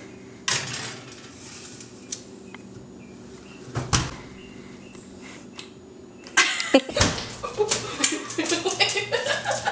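A knock as a metal baking pan goes onto the oven rack, then the oven door shuts with a thump just before four seconds in.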